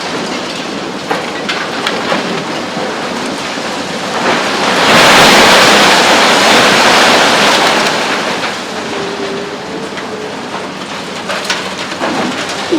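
High-rise demolition by a Hitachi ZX 870 XXL long-front excavator with a demolition shear: a steady rushing clatter of breaking concrete and debris that swells loud for about three seconds, from about five seconds in, then settles back, with a few sharp knocks near the end.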